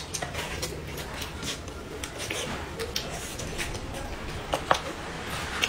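Close-up eating sounds of a person eating meat with her fingers: wet chewing, lip smacking and sharp little clicks, scattered and irregular, with two louder smacks a little past halfway.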